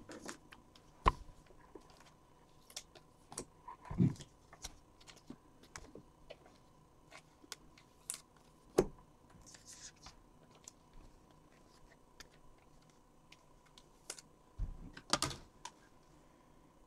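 Scattered light clicks and taps, with louder knocks about one, four, nine and fifteen seconds in.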